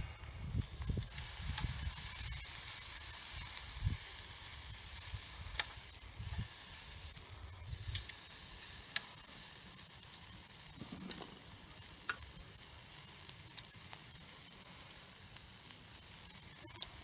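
Slices of beef tongue sizzling on a grill net over charcoal, a steady hiss with a few sharp pops. Wind rumbles on the microphone through roughly the first half.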